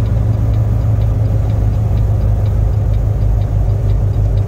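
Semi-truck diesel engine running steadily, with a faint light ticking about twice a second over the rumble.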